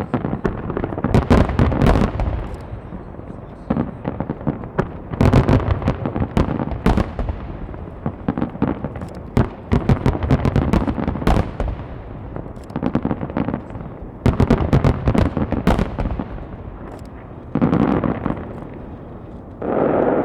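A firework finale barrage: aerial shells bursting in quick succession, sharp cracks over deep booms. They come in dense volleys every few seconds.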